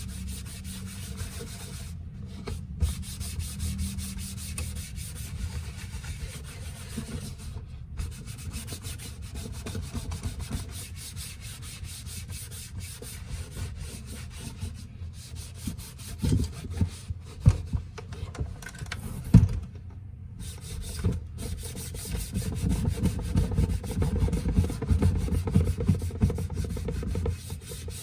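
An APC UPS casing being wiped clean by hand: steady rubbing and scrubbing, with a few sharp knocks a little past halfway and harder, louder rubbing near the end.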